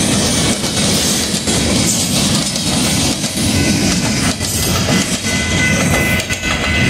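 Freight train of insulated boxcars rolling past, steel wheels clacking over the rail joints with a steady rumble. A thin, high steady squeal joins in about five seconds in.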